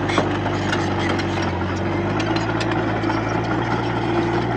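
Diesel engine of a Komatsu D31P bulldozer running steadily, with a scatter of short metallic clicks and rattles.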